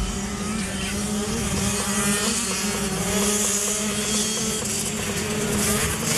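A pack of racing quads (ATVs) pulling away from the start together, many engines revving hard at high rpm.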